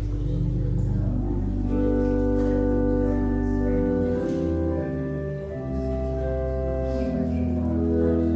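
Church organ playing slow, held chords over deep pedal notes, the harmony changing every second or two.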